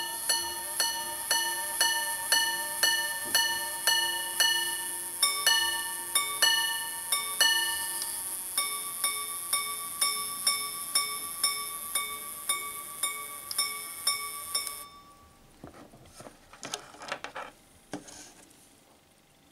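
Minute-repeater wristwatch striking the time on its gongs: a run of low strikes for the hours, then alternating high-low pairs for the quarters, then high strikes for the minutes, evenly paced. Under the chime runs a steady high whir of the repeater's governor, which stops with the last strike about 15 seconds in. A few light knocks of handling follow.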